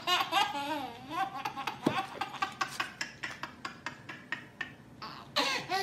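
Baby laughing in fits of high giggles: one burst at the start and another near the end. Between them come many light clicks and taps.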